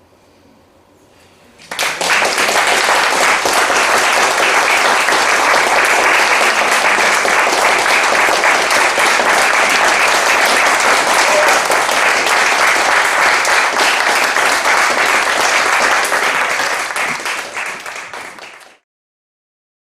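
Audience applauding after the last piano note dies away: the clapping starts suddenly about two seconds in, stays steady, then thins out and stops abruptly shortly before the end.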